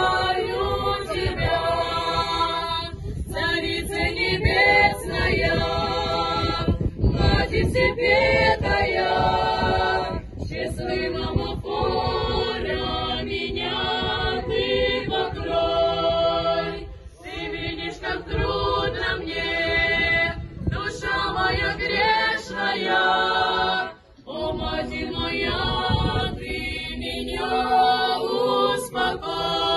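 A small group of women singing an Orthodox spiritual psalm a cappella in harmony, a Marian hymn. The phrases are sung in a flowing line with brief pauses for breath between them.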